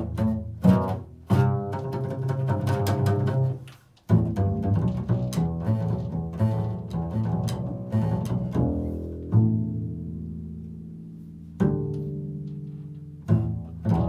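Double bass played pizzicato in a slow improvised solo: low notes plucked one after another, some left to ring and die away, with one long fading note in the middle before the plucking starts again.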